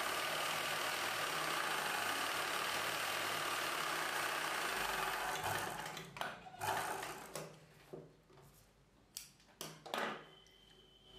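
Ralson sewing machine running steadily while stitching a folded fabric edge, stopping about five seconds in; several short, broken sounds follow as the fabric is repositioned under the needle.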